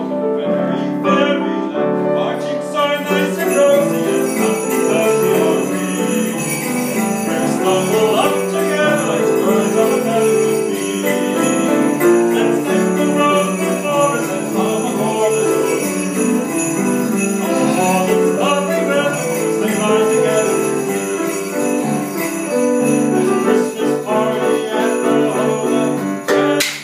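Many sleigh bells shaken by the audience, jingling steadily from about three seconds in, over a piano accompaniment and a man singing.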